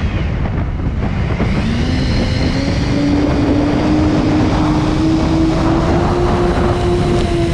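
Electric motor and propeller of an X-UAV Clouds RC plane whining, heard from its onboard camera. The pitch climbs over the first few seconds and then holds steady, over a constant rush of wind on the microphone.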